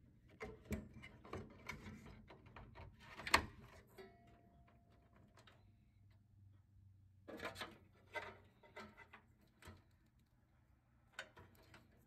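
Power-supply cables and plastic connectors being handled and plugged in inside a steel PC case: rustling with small plastic clicks, the sharpest about three seconds in, more around seven to eight seconds and again near the end.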